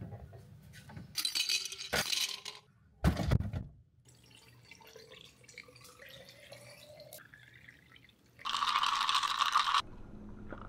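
A few sharp glass clinks in the first few seconds, then, after a quiet stretch, liquid is poured into a glass for about a second and a half near the end.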